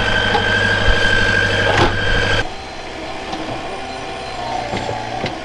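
Wacker Neuson ST31 compact track loader's engine running steadily with a high whine over it, freshly started and warming up after being frozen in. About two and a half seconds in the sound drops suddenly to a quieter engine hum with a few light knocks.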